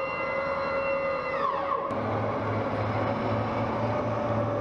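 A high mechanical whine from an M270 rocket launcher holds steady, then glides down and dies away a little under two seconds in. After a sudden change it gives way to the steady low rumble of M270 tracked launchers running on the move.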